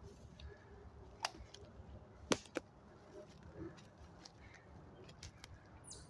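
Footsteps of a walker on a forest floor, with a low rumble of movement and a few sharp snaps of dry twigs, the loudest a little over two seconds in with a second close after it.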